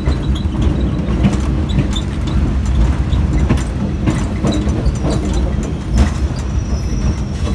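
Steady low rumble of a railroad car rolling along the track, with scattered clanks and rattles.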